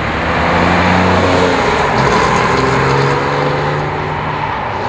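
A Porsche 911 Carrera 4's 3.6-litre flat-six with dual exhaust, accelerating past on the road. Its note rises, drops briefly about two seconds in, then rises again.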